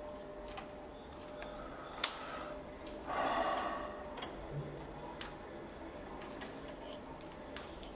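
Light scattered clicks and taps of multimeter test probes and wire ends being handled, with one sharp click about two seconds in and a brief rushing noise about three seconds in.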